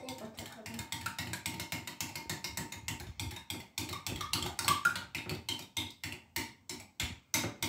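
Eggs being beaten by hand in a glass bowl, the metal utensil clicking against the glass in a quick, steady rhythm of about six strokes a second.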